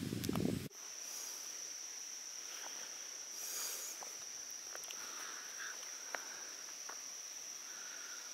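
Insects in the forest keep up a steady, high-pitched trilling drone, with a few faint clicks scattered through it. A short burst of muffled low noise at the very start cuts off abruptly under a second in.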